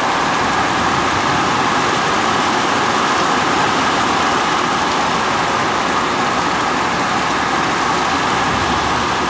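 Heavy rain pouring down in a steady, loud downpour.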